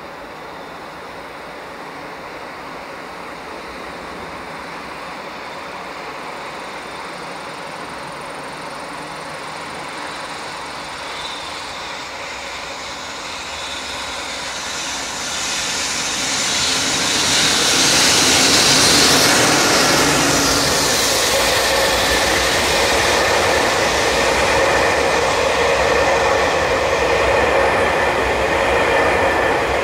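Freight electric locomotive hauling a rake of new commuter cars on a delivery run, approaching out of a tunnel and passing close: a rumble that grows and peaks a little past halfway as the locomotive goes by. After that comes the steady rolling of the towed cars, with a few steady ringing notes from the wheels.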